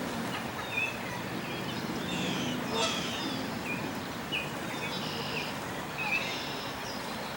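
Mallard ducklings peeping: many short, high chirps, often dropping in pitch, scattered throughout over a steady background noise.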